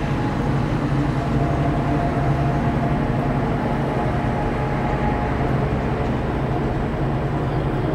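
Inside a moving aerial cable car gondola: a steady low mechanical hum and rumble from the cabin travelling along the line, with a fainter higher whine through the middle.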